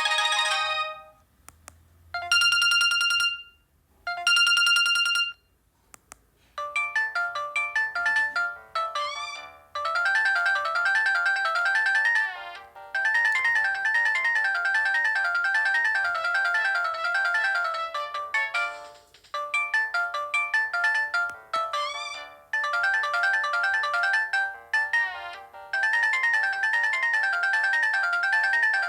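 Built-in ringtones of a Samsung GT-E1205T mobile phone. One tune ends, then two one-second beeps come about two seconds apart. From about six seconds in, a quick electronic melody of short stepping notes plays and repeats, with brief gaps between repeats.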